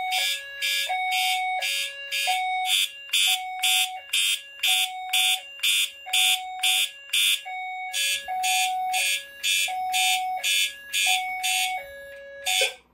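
Fire alarm notification appliances sounding together: a horn pulsing about two and a half times a second over a lower hi-lo tone that steps back and forth between two pitches. Both stop suddenly just before the end.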